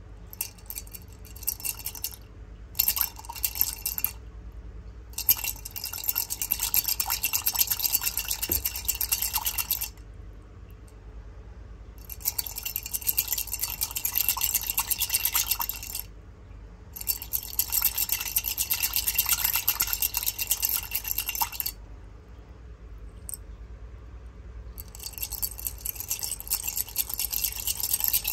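Small hard candies rattling and clinking against one another and a hard container, in bursts of a few seconds with short pauses between.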